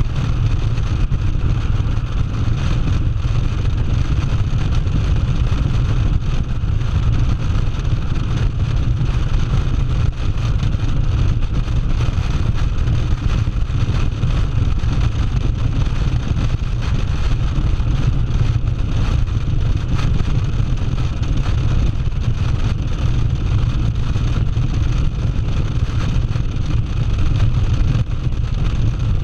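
Cruiser motorcycle running steadily at highway speed, its low engine drone mixed with wind rushing over the microphone.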